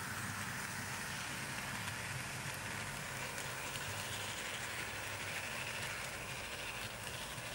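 OO gauge model goods train of tank wagons running past on the track: a steady rolling whirr of small wheels on rail with a low motor hum.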